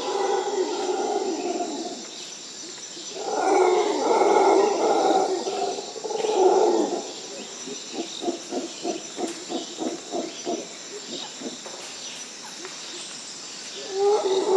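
Wild animal calls: three drawn-out pitched calls, then a fast run of short pulses about five a second, and another call near the end, over a steady high hiss.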